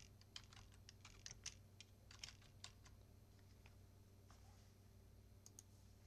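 Faint clicking of computer keyboard keys being typed: a quick, uneven run of keystrokes over the first four seconds, then two quick clicks near the end.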